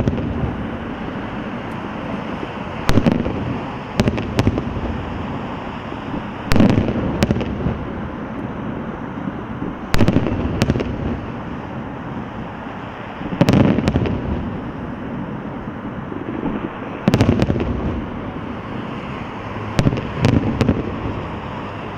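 Aerial fireworks shells bursting: sharp booms every three to four seconds, often two close together, over a steady background rumble and hiss.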